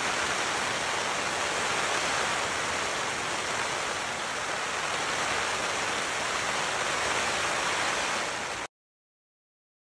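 Heavy rain falling on the fabric of a Trailstar tarp shelter, heard from inside: a dense, steady hiss that cuts off suddenly near the end.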